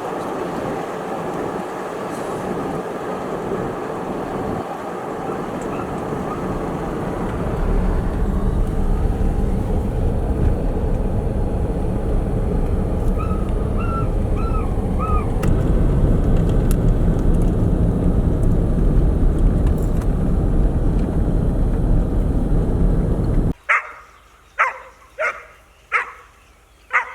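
A steady rushing noise with a low rumble that strengthens about a quarter of the way in, cutting off abruptly near the end. After the cut a dog barks about five times, roughly a second apart.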